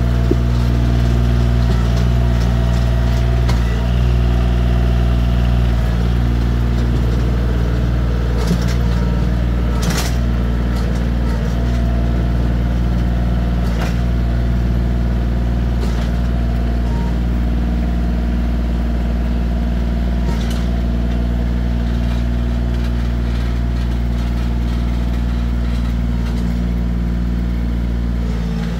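Bobcat CT2025 compact tractor's diesel engine running at a steady speed, with a few sharp knocks along the way.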